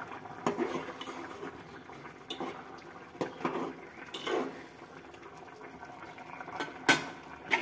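Okra, potato and fish curry bubbling at a rolling boil in an aluminium pot while a long metal spatula stirs it, scraping and knocking against the pot a few times, with a sharp clink near the end.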